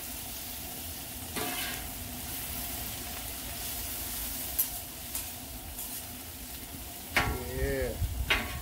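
Sliced onions and bell peppers sizzling on a hot four-burner flat-top griddle, with metal spatulas scraping and clicking against the steel plate as they are tossed a few times.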